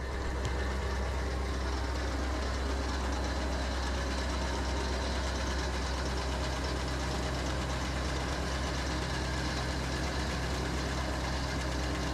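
Engine running steadily at a constant speed, a low, even drone that comes in suddenly at the start.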